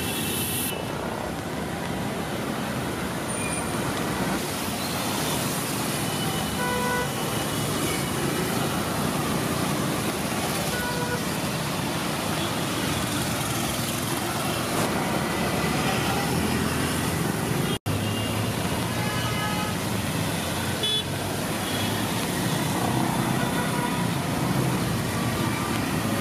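Road traffic on a wet street: cars, auto-rickshaws and motorbikes running, with short vehicle horn toots now and then. The sound breaks off for an instant about two-thirds through.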